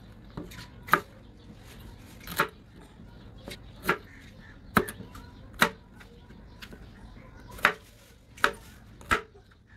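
Knife chopping okra pods on a cutting board. About eight sharp knocks of the blade striking the board come roughly once a second, unevenly spaced.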